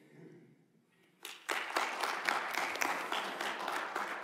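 Audience applauding in a large hall, starting about a second in.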